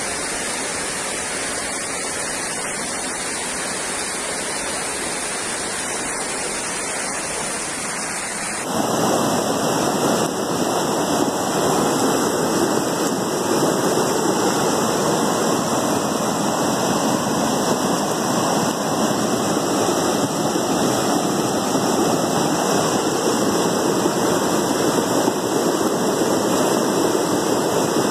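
Steady rush of muddy floodwater pouring down a street in heavy rain, a river that has burst its banks. About nine seconds in it becomes louder.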